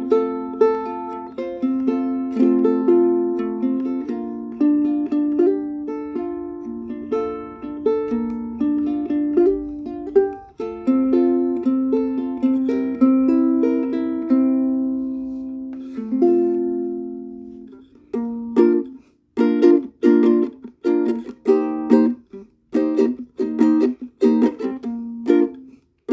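Solo ukulele: a melody picked note by note with the strings left to ring. About eighteen seconds in, it changes to short strummed chords, each one cut off quickly.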